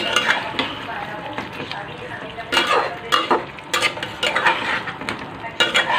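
A spatula stirring chicken pieces and potatoes in thick gravy in a cooking pot: irregular wet scrapes and knocks against the pot, with a few quicker flurries, over a light sizzle from the heat.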